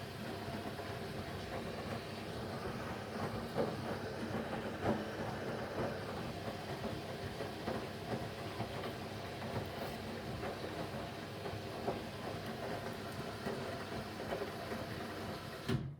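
Haier washing machine running an express 15 cycle: a steady rumble from the turning drum with occasional knocks. It cuts off suddenly near the end.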